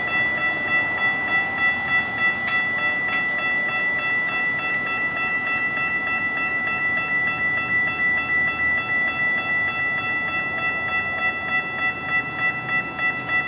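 Railroad crossing warning bell ringing in a fast, steady, repeated clang while the crossing gates lower, cutting off abruptly at the end once the gates are down.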